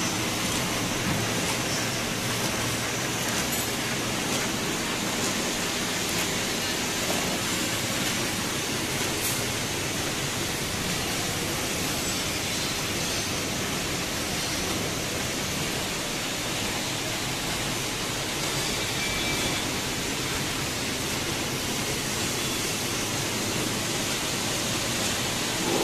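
Printing belt conveyor running: a steady, even noise from its motor and belt, with no rhythm or change in level.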